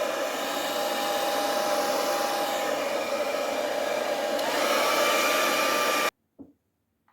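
Hair dryer blowing steadily with a motor whine that steps up in pitch about four seconds in, then switched off abruptly about six seconds in.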